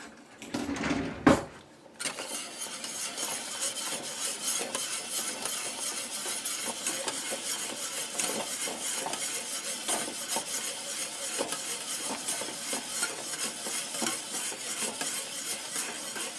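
A few knocks against a container, then a wire whisk beating rapidly, a dense run of clicks and scraping, as custard powder is whisked in to break up its lumps and dissolve it.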